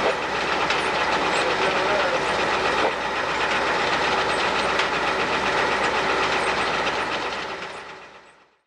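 Steady mechanical running noise with faint voices under it, fading out near the end.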